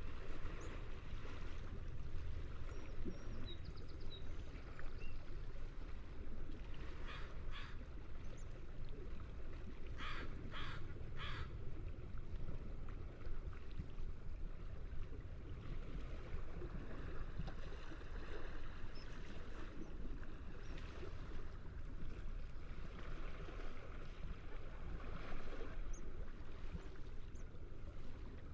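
Seagulls calling over the steady wash of ocean waves, with two calls about seven seconds in and a quick run of three calls around ten to eleven seconds.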